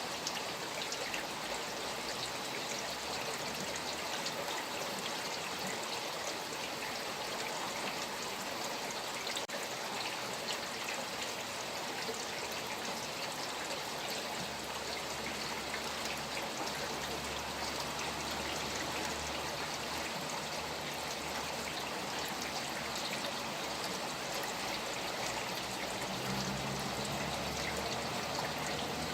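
Steady rain falling with flowing water, a continuous wash of fine patter and trickling.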